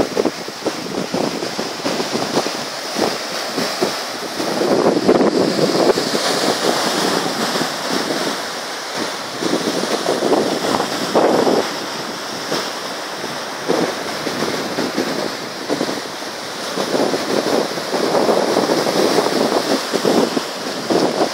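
Ocean surf breaking and washing over a rocky, stony shore, a continuous rush that swells louder every few seconds as waves come in.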